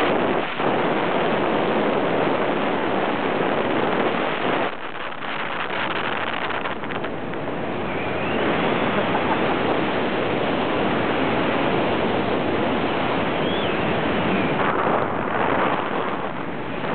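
Wind rushing over the microphone of a hang glider in flight, a steady airflow noise that eases a little about five seconds in and picks up again around eight seconds.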